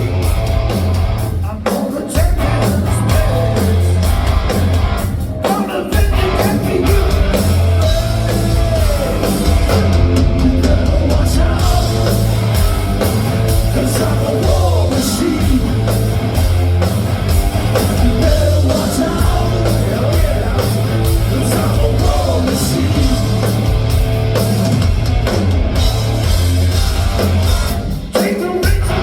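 A live hard rock band playing loud and heavy, with distorted guitars, bass and a driving drum kit, and a singer's voice over the top.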